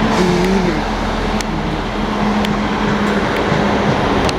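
GWR Class 158 diesel multiple unit running at a station: a steady diesel drone with a low hum, over a loud even rushing noise.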